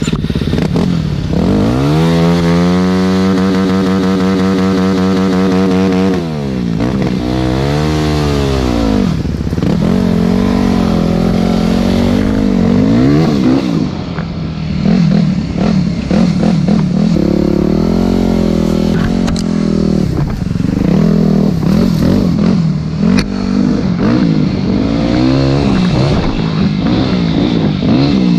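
Four-stroke single-cylinder dirt bike engine being ridden hard along a rough trail. It holds steady at high revs for about four seconds, then its pitch rises and falls repeatedly with the throttle and gear changes.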